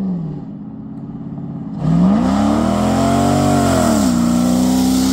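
Toyota Sequoia's 4.7-litre V8 running through its custom aftermarket exhaust: low and steady at first, then about two seconds in it gets louder and revs up smoothly, eases back down, and settles into a steady, slightly higher drone.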